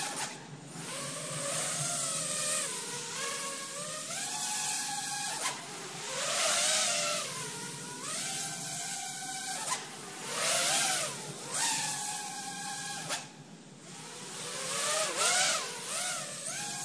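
ImpulseRC Alien 5-inch FPV quadcopter's brushless motors and three-blade props whining, the pitch swooping up and down again and again as the throttle is punched and cut through repeated power loops. It grows loudest on three or four close passes.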